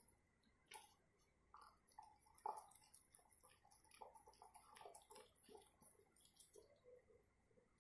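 Labrador retriever eating rice and chicken from a steel bowl: faint, irregular chewing, licking and smacking sounds.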